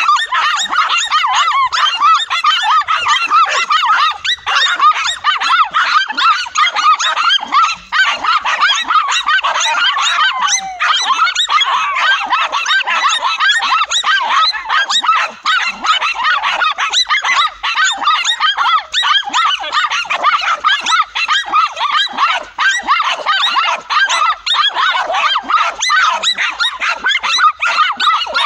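Several dogs barking and yelping over one another without pause, high-pitched, as they hold a tegu lizard at bay.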